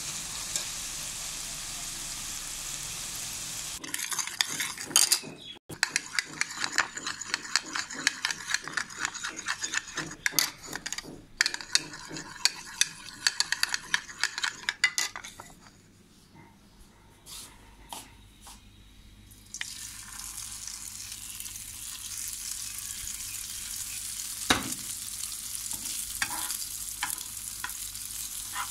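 Mixed vegetables sizzling in a steel pan as they are stirred. From about four seconds in, a spoon beats an egg mixture in a bowl with rapid clicking for about ten seconds, followed by a quieter stretch with a few taps. From about twenty seconds in, egg sizzles in hot oil, with one sharp knock partway through.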